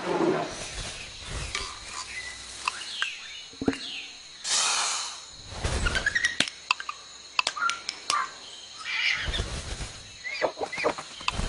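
A run of dubbed-in sound effects: short bird chirps and whistles mixed with sharp clicks and a few swishes.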